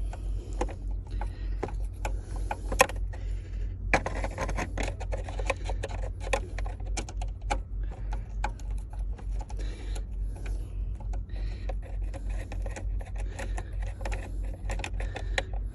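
Screwdriver with a T15 Torx bit working a screw on a steering column, with many quick, irregular clicks and rattles over a steady low hum.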